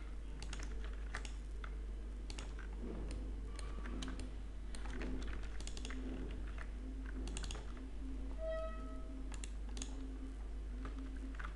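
Computer keyboard keys and mouse clicking at an irregular pace. A faint low tone comes and goes underneath, and a short higher tone sounds about eight and a half seconds in.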